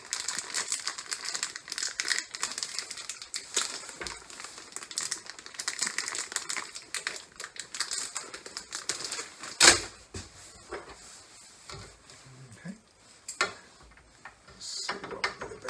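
Crinkling and rustling of a small clear plastic hardware bag being opened, mixed with the light clicking of small metal mounting screws handled in the fingers. One sharp click stands out a little under ten seconds in.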